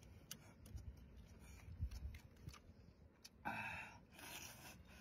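A man eating noodles: quiet chewing with small clicks, then two short slurps about three and a half seconds in.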